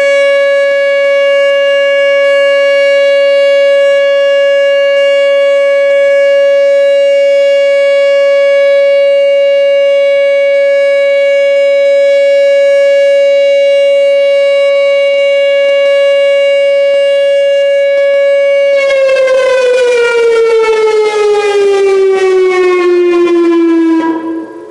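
Whelen WPS-2910 electronic warning siren sounding its steady alert tone, a single held pitch for about nineteen seconds. The tone then slides downward in a wind-down and cuts off just before the end.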